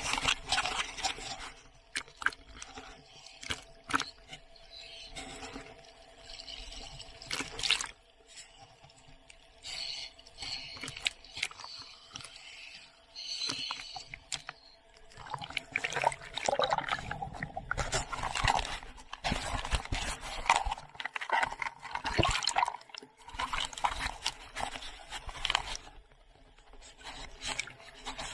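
Sea water sloshing and splashing around a camera held at the surface, with irregular bumps and knocks from handling it. The sound comes in uneven surges and is busiest in the second half.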